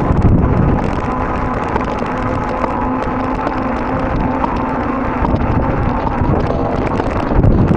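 Wind buffeting the microphone of a moving bicycle rider: a loud, rough low rumble that eases a little in the middle and picks up again near the end, with a faint steady hum underneath.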